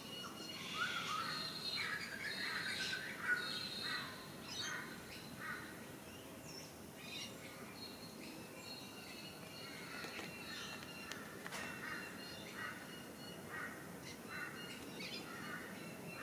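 Birds chirping and calling: a busy run of short calls in the first few seconds, then scattered chirps.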